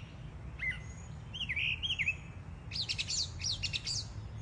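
Backyard songbirds singing: short chirps and whistled notes, several sliding down in pitch, with a fast run of high chirps near the end.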